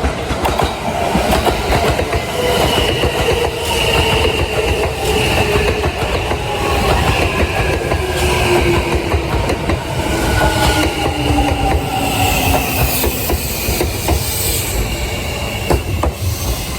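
Kintetsu 80000 series electric train slowing, its traction motors whining in several tones that fall steadily in pitch over low running rumble. Wheels click over rail joints.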